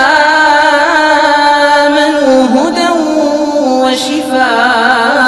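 A man's voice chanting Quran recitation in the melodic tajweed style, drawing out long held notes with wavering ornamental turns and a dip in pitch about halfway, amplified through a microphone.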